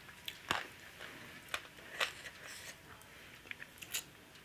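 Close-miked eating sounds: chewing and wet mouth smacks as a mouthful of rice and chicken curry eaten by hand is chewed, with irregular sharp smacks spaced a second or so apart and a quick cluster near the end.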